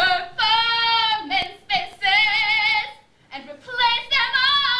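A woman singing solo in long held notes, some with vibrato, the phrases broken by short pauses.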